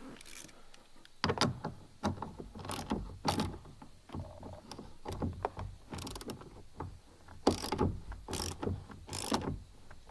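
Ratchet wrench clicking in short bursts while a bolt is tightened down.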